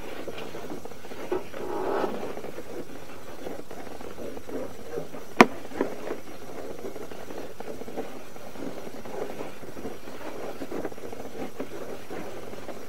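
Push cable of a RIDGID sewer inspection camera being fed by hand down the pipe: a steady low rustle and scrape, with a few sharp clicks, the loudest about five and a half seconds in.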